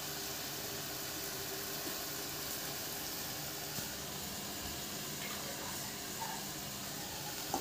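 Steady sizzling hiss of chilli paneer, peppers and sauce cooking in a wok over a lit gas burner.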